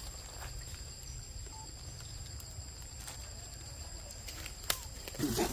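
Outdoor forest ambience: a steady, high-pitched insect drone with a low rumble beneath, broken by a few faint clicks and leaf rustles, a sharp click near the end and a brief louder sound just after it.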